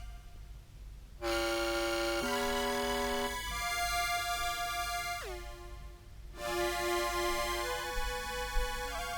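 Contrabass clarinet played through an octave pedal and synth pedal, sounding as bright, organ-like held notes pitched well above the instrument's own range, changing every second or so. About five seconds in, one note swoops sharply down in pitch. The synth tracking sounds messy.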